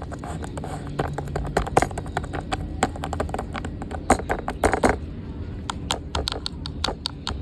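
Rapid, irregular clicking and tapping of the toys on a handmade fidget board being played with, over a steady low hum.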